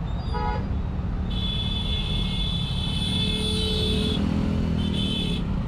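Road traffic with a steady low engine rumble and vehicle horns: a short honk just after the start, then a high-pitched horn held for about three seconds, and another brief high honk near the end.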